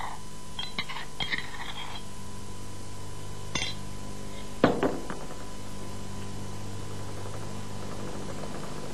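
A utensil clinking and scraping against a mortar and a glass bowl as a garlic-and-potato paste is scraped out: a few light clinks, one louder ringing clink about halfway through, then faint light tapping.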